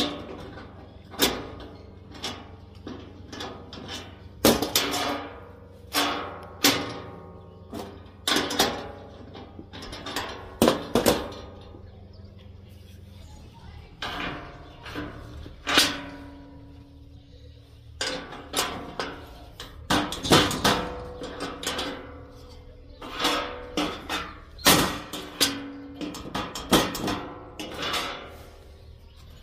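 Hammer striking steel at an irregular pace, singly and in quick groups, some blows leaving a brief metallic ring.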